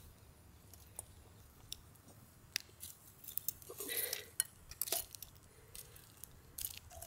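Light clicks and clinks of cooking utensils and food being handled, with a louder scraping, rustling stretch about four seconds in.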